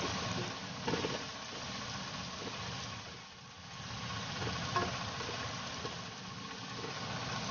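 Sliced onions frying in oil in a non-stick wok, a steady sizzle, with a silicone spatula knocking and scraping the pan now and then as they are stirred. The onions are at the soft, light-golden stage.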